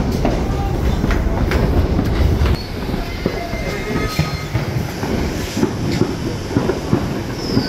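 Subway train running along elevated tracks: a heavy rumble for the first two and a half seconds, then a steadier rumble with sharp wheel clacks over the rail joints. A faint high wheel squeal falls away near the end.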